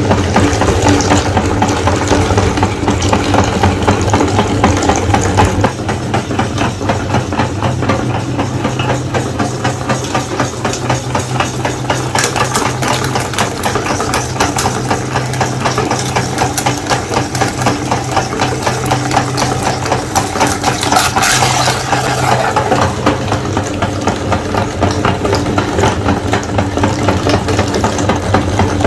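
Electric meat grinder running with a steady motor hum, with a continuous crackle as eggs are forced through it.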